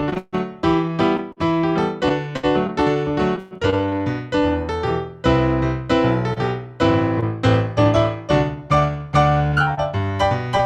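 Solo piano music, a steady flow of struck notes and sustained chords.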